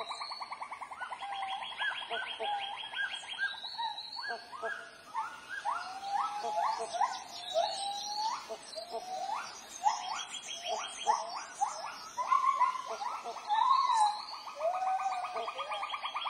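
Tropical rainforest wildlife chorus: many birds calling over one another in short sweeping notes, above steady rapid pulsing trills.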